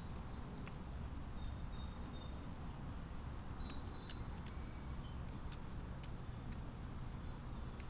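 Outdoor ambience: a steady low rumble with scattered faint sharp clicks and a few faint, brief high chirps of distant small birds.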